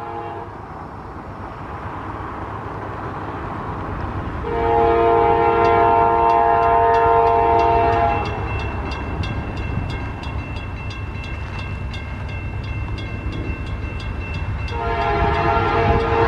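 Approaching train horn sounding a long multi-tone blast about four seconds in and starting another near the end, over a low rumble that builds as the train nears. A railroad crossing bell dings steadily from about five seconds in as the crossing gates come down.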